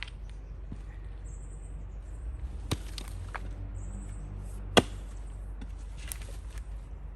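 Double-bit axe chopping into firewood as it is split by hand: two sharp strikes, one about three seconds in and a louder one near five seconds.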